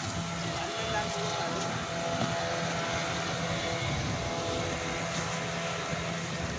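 Outboard motor of a small fibreglass fishing boat running steadily under way, a constant droning hum.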